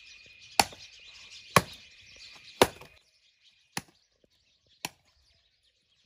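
Firewood being chopped: sharp chopping strokes about once a second, three loud ones and then two fainter ones. A steady high hiss runs under the first half and cuts off about halfway through.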